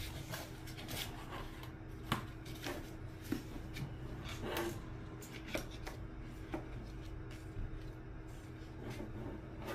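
Scattered light knocks, clicks and rustling as a speaker cabinet is handled and the stuffing inside is pulled about, over a steady low hum.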